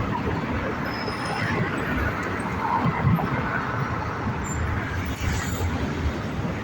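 Steady rumble and hum of an underground metro station platform, with no distinct train pass or impact.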